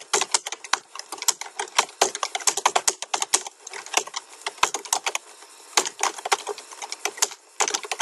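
Typing on a computer keyboard: quick, irregular key clicks, easing off for a second or so about four seconds in.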